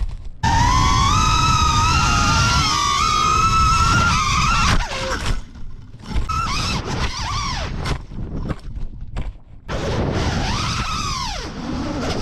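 FPV drone's brushless motors whining, the pitch rising and falling with the throttle. The whine drops out briefly several times around the middle, then swells and falls in quick arcs near the end.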